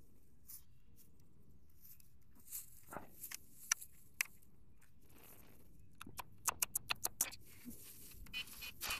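Scattered sharp clicks and taps, as of something being handled, over a faint hiss; they start about two and a half seconds in and come in a quick run about six to seven and a half seconds in.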